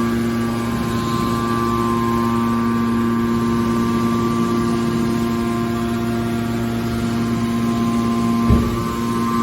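Metal baler's hydraulic power unit running with a steady hum. A single dull thump about eight and a half seconds in.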